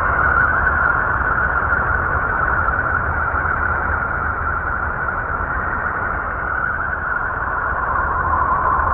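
Uranus's radio and plasma-wave emissions, recorded by the Voyager 2 spacecraft and converted to audio: a steady hiss gathered in a narrow middle band, with a low rumble beneath, eerie and likened to a lonesome wailing.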